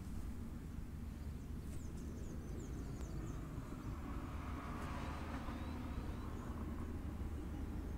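Outdoor background noise: a steady low rumble, a few faint high chirps about two seconds in, and a broad swell of noise around the middle.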